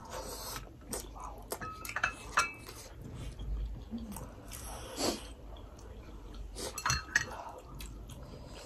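Spoons clinking against ceramic bowls and plates, with a few sharp clinks that ring briefly. Soft chewing and mouth sounds of eating come between them.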